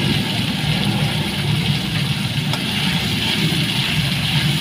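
Onion, ginger, garlic and green-chilli paste sizzling in hot mustard oil in an aluminium kadai, over a steady low rumble.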